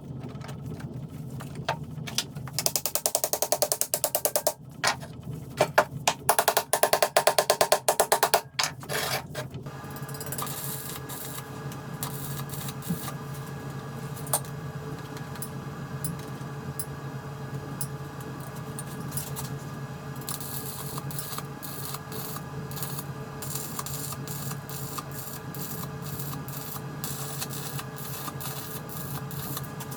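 Metal milling machine running: a steady hum, then two stretches of very fast, loud rattling between about two and eight seconds in, settling into a steady whir with fixed tones and light ticking.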